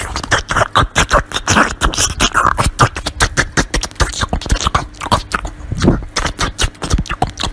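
A small white Pomeranian puppy biting into and chewing a slice of watermelon: rapid wet crunching and smacking, several clicks a second in an uneven rhythm.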